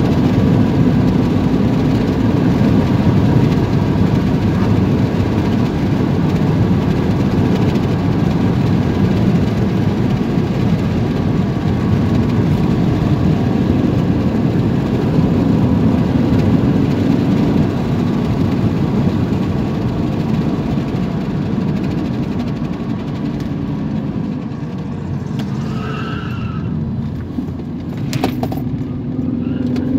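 Car engine and tyre-on-road noise heard from inside the cabin while driving steadily. The noise eases as the car slows for a roundabout, there is a sharp click near the end, and then the engine pitch rises as it speeds up again.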